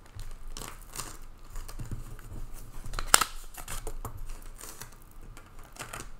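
Small clicks and rustling as a two-strand faux-pearl necklace is taken out and handled, with one sharper click about three seconds in.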